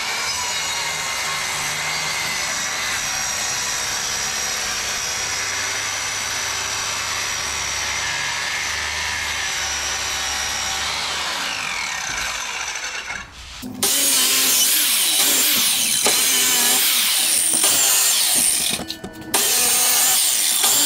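Electric power saw running and cutting a wooden board at a 45-degree angle, with a steady motor whine. About two-thirds of the way in the sound jumps abruptly to a louder, rougher cutting noise, broken off briefly once near the end.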